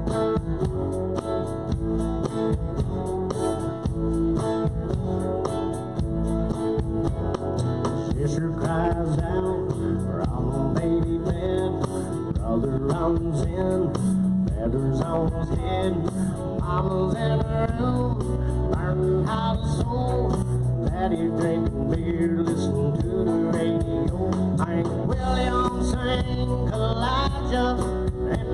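Live country-rock band playing a guitar-led instrumental passage, with electric guitar lines bending in pitch over the rhythm section.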